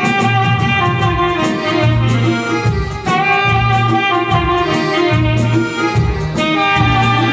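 Saxophone playing a sustained melody over a band backing with a steady beat of bass and drums.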